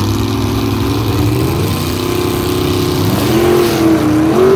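Drag-race car engines running at the starting line, steady at first, then revving with the pitch rising near the end as a car begins to launch.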